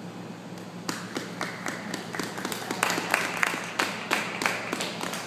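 Hand clapping close by, starting about a second in, at about three claps a second, over a steady low hum.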